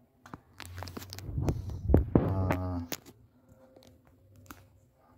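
Handling noise: scattered clicks and knocks with some rustling, the loudest knock about two seconds in, and a short muffled voice just after it. Only faint clicks follow.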